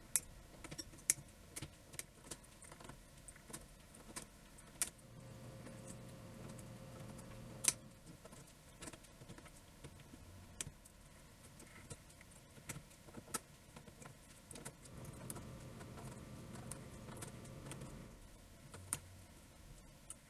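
Irregular sharp clicks and light clatter of small hard keyboard parts being handled during assembly. Twice a low hum rises for about three seconds.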